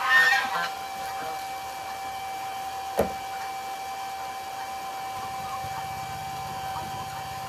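Steady mechanical hum of the electric pump draining the geese's plastic wading pool. A goose honks briefly at the very start, there is a sharp click about three seconds in, and a low pulsing drone joins near the end.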